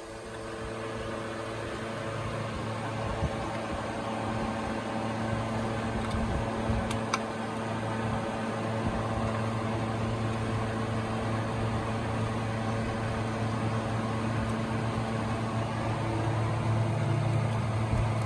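Toyota 1ZZ four-cylinder engine running steadily at idle, with a couple of faint clicks about seven seconds in.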